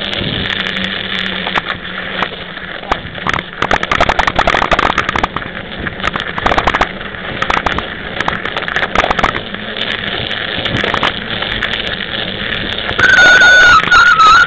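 Mountain bike riding over snowy pavement, heard through a bike-mounted camera: steady wind and tyre rumble, with bursts of rattling clicks over bumps through the middle. Near the end a loud, steady, high-pitched squeal starts and holds.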